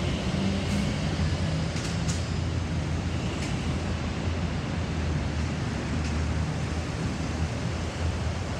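Airbus A320-216's CFM56 jet engines at takeoff thrust: a steady low rumble with hiss, plus a few faint clicks in the first half.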